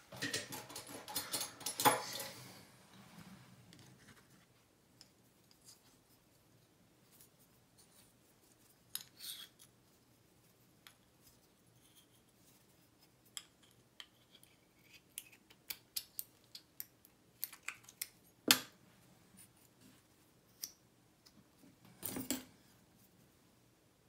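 Small metal lock parts being handled: the brass cylinder housing and a plug follower click and scrape against each other. A quick run of clicks comes first, then scattered light ticks, one sharper click about three quarters of the way through and a short clatter of clicks near the end.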